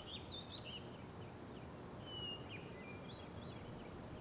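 Faint birds chirping and whistling in short calls over a steady outdoor hiss, one note held a little longer about two seconds in.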